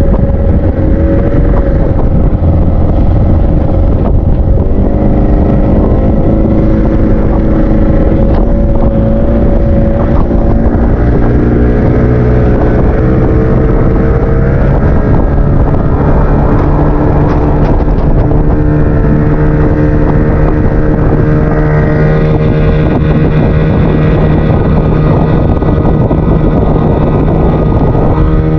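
Boat engine running under way, its pitch stepping up and down a few times, over a heavy low rumble.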